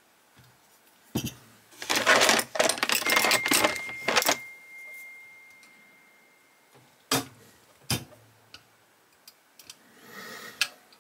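Clatter and clicks of a diecast model car's metal body and small parts being handled and a screwdriver set to its screws. There is a dense clatter for a couple of seconds with a faint high ring lingering after it, then two sharp clicks and a few light ticks.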